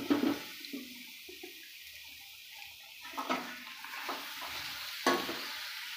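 Tilapia pieces frying with a steady sizzle in hot oil and masala in a metal kadhai, while a metal spatula scrapes and knocks against the pan about three times as the fish is turned.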